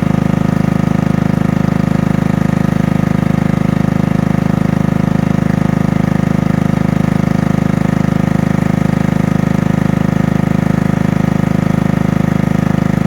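Portable generator's small engine running steadily at a constant speed after months of sitting.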